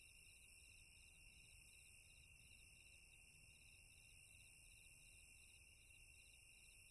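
Faint crickets chirping in a steady rhythm of about three chirps a second, over a steady high hiss.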